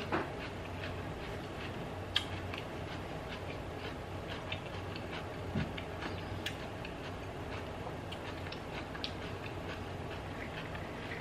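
Close-up chewing of a raw yellow sweet pepper, with small crunches and wet mouth clicks scattered throughout, over a steady low hum.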